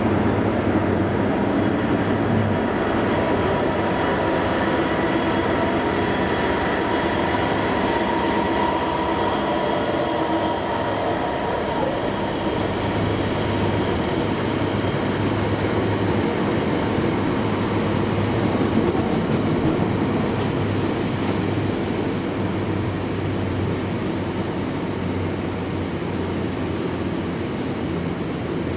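Freightliner Class 66 diesel locomotive, an EMD two-stroke V12, passing at the start and hauling a long rake of hopper wagons. The wagons' wheels roll by in a steady rumble and rattle over the rails, with a thin high ringing squeal from the wheels that is strongest in the first half and fades away.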